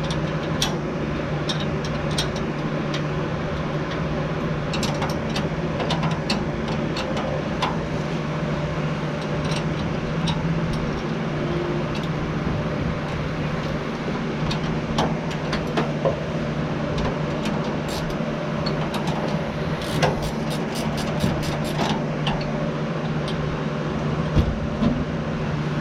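Steady mechanical hum with scattered metallic clicks and taps of hand tools on the fuel-pump mounting brackets. About twenty seconds in there is a quick, even run of clicks like a ratchet wrench being worked.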